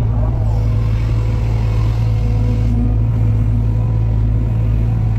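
Diesel engine of heavy construction machinery running at a steady speed, with a deep, even hum.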